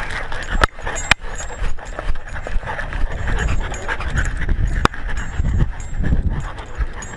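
A dog panting right at a collar-mounted camera, with a few sharp clicks from the collar and mount knocking.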